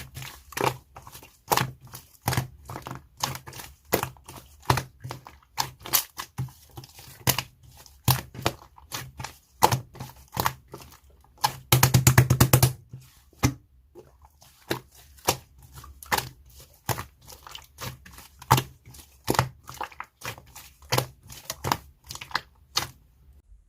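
Slime being squished and pressed by hand, giving sharp popping clicks about twice a second, with a quick rapid run of pops a little past halfway.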